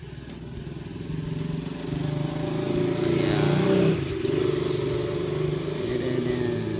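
A vehicle engine running, probably a motorcycle, growing steadily louder to its loudest about four seconds in and then easing off a little, as a vehicle passing close by would.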